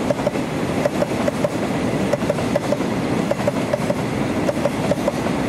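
Oil freight train's tank wagons rolling past. A steady rumble runs under short wheel clicks over the rail joints, which come in groups of two or three about once a second.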